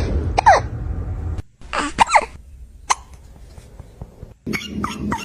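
Kitten hiccupping: short, sharp, squeaky hiccups, each dropping quickly in pitch. There is one about half a second in, a pair near two seconds, one near three seconds and a quick run of them near the end.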